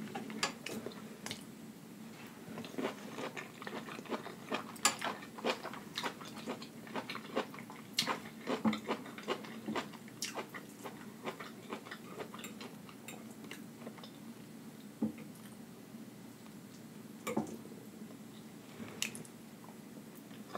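Close-miked chewing and lip smacking on a mouthful of rice, broccoli and fried wonton, full of short wet clicks and crisp crackles. They are thickest in the first half and thin out later.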